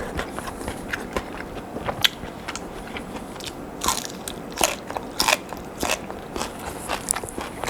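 A person biting and chewing crispy fried potato sticks close to the microphone, with irregular sharp crunches.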